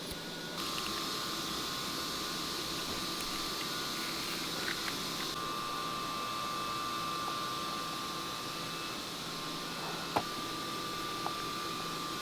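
Steady mechanical hum with a faint steady whine, typical of a fan or ventilation running in a workshop, with one sharp click about ten seconds in.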